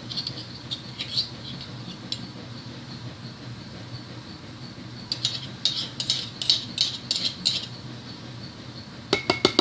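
Light clicks and clinks of slime-making containers and a utensil being handled on a tabletop, with a quick run of taps between about five and seven and a half seconds in.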